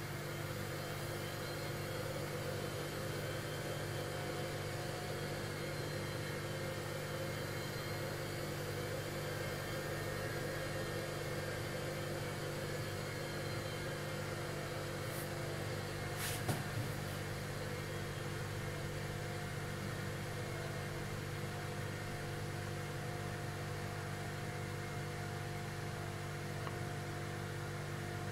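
Hard-drive spindle motor of a miniature disc sander running steadily, a constant whirring hum with a hiss, its platter spinning the sanding disc with nothing being sanded. A single sharp click about halfway through.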